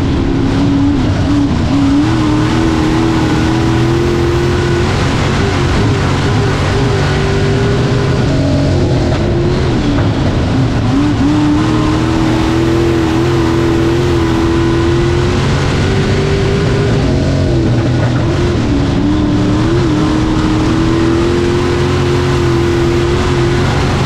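Dirt-track stock car's engine at racing speed, heard from inside the cockpit. It holds a high, steady note down the straights and briefly drops and climbs back three times, about every eight seconds, as the driver eases off and gets back on the throttle through the corners.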